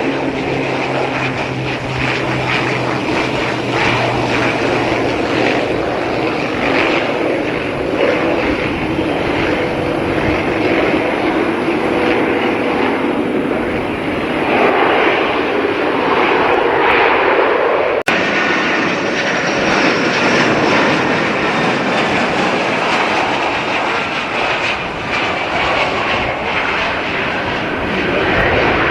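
Loud, steady noise of a passing airliner's engines, changing abruptly about eighteen seconds in.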